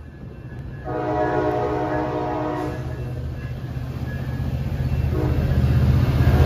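Bilevel passenger cars rolling past on the rails, with a train horn sounding one long blast about a second in. Near the end the diesel engine of the EMD F59PHI locomotive shoving the train comes up louder as it draws close.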